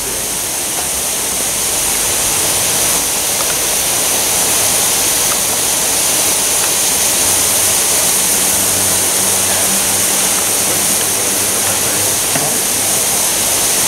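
Several thin jets of water hissing out of splits in a sealed steel drum that is being pressurised with mains water through a hose, spraying onto wet asphalt. The leaks are a steady, even rush of spray with no let-up.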